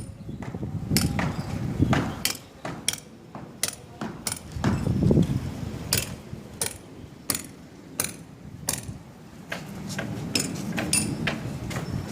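Hammer blows at a construction job: a run of sharp, irregular knocks, about one or two a second, over a low background rumble.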